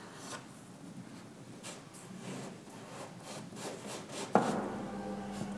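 Hands rubbing and smoothing a parchment hinge onto the wooden folds of an organ bellows: a series of short, soft scrapes. A little after four seconds a sharp knock comes, followed by a steady low hum.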